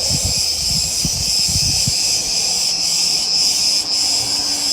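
Cicadas calling in a loud, steady, high-pitched drone. A few low thuds sound in the first two seconds.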